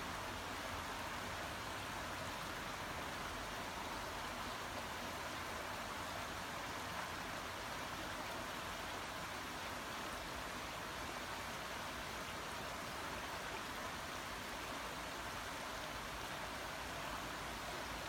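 Shallow creek water flowing, a steady, even rush with no breaks.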